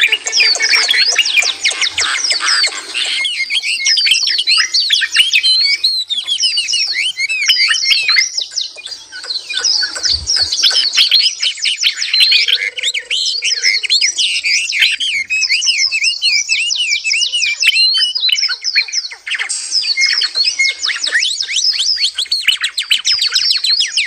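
Several songbirds singing at once: a dense, continuous chorus of rapid high chirps and warbling phrases, thinning briefly partway through.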